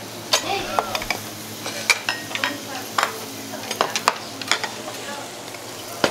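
Marinated beef sizzling on a tabletop charcoal barbecue grill, with repeated sharp clinks and clatters of metal tongs, bowls and lids handled on the table.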